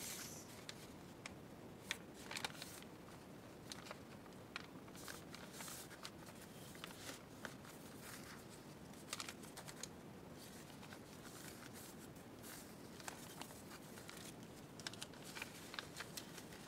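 Faint rustling and sliding of paper sheets as they are laid on top of one another and shifted by hand, with scattered soft taps and crinkles at irregular moments.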